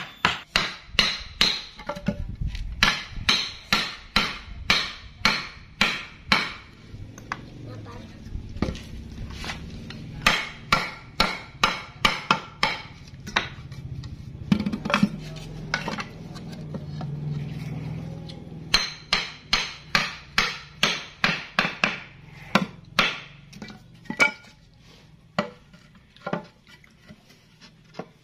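Hammer blows on a wood-working tool in quick runs of about two to three strikes a second, broken by a couple of short pauses, as a hardwood corner joint is worked by hand.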